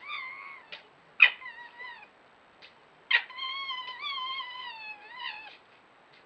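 Foxes squabbling in an aggressive encounter: a series of high, wavering whining calls, each starting with a sharp yelp. There is a short call about a second in, then a long one of about two and a half seconds.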